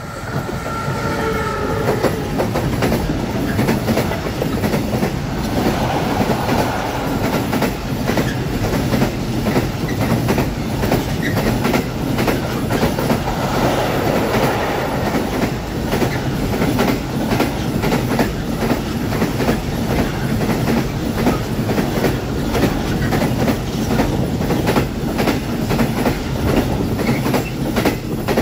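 Container freight train passing close by. The tail of a locomotive horn blast fades out in the first two seconds. Then a long, steady run of wheel clatter and rumble from the container wagons on the rails.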